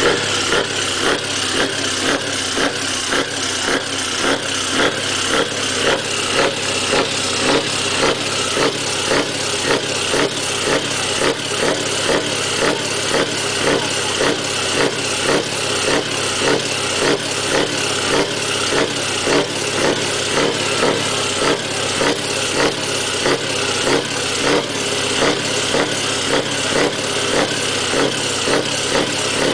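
Scania V8 truck engine running steadily at idle, with a regular throb about once a second.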